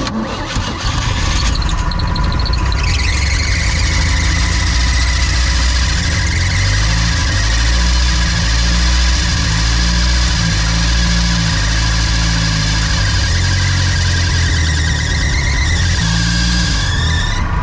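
OMC Cobra 3.0 L four-cylinder marine engine kicking in abruptly and running loudly and unevenly. A high squealing whine sits over it and rises near the end.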